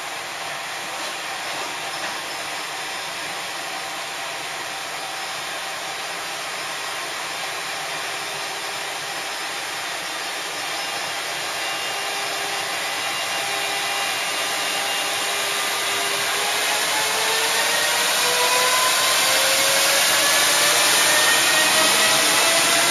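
JR Freight EF210 electric locomotive starting a heavy container train. Its VVVF traction inverter whines with several steady tones while it creeps forward, then from about two-thirds in the tones rise in pitch together as it gathers speed. The sound grows louder as the locomotive draws past.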